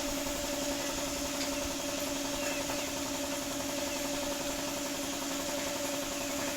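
Daihatsu Taft GT diesel engine idling steadily, with an even, unchanging tone.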